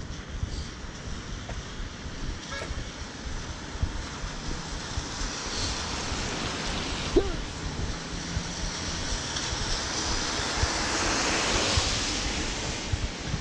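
Rain pattering on a clear umbrella overhead, with car tyres hissing on the wet street as traffic passes; the hiss swells to its loudest a couple of seconds before the end, then eases. A brief high squeak about halfway through.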